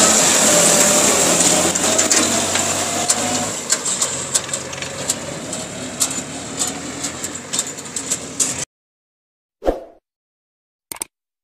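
Farm tractor's diesel engine running steadily under load, hauling a loaded trailer, with scattered light knocks and rattles in its second half. The engine sound cuts off abruptly about nine seconds in, followed by a short whoosh and a click.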